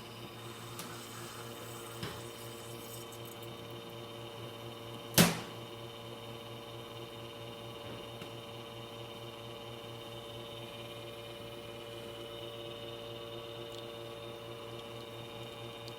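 Expobar espresso machine pulling a test shot after a full service: its pump runs with a steady hum. A faint click comes about two seconds in and a sharp, louder click about five seconds in.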